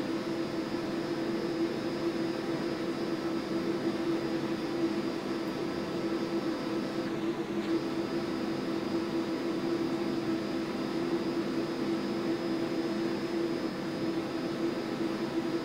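Stepper motor driving the X-axis (cross-slide) ball screw of a Grizzly G4003G lathe through a timing belt, feeding slowly at about 20 inches per minute: a steady, smooth whine. A high tone in it drops out briefly about seven seconds in.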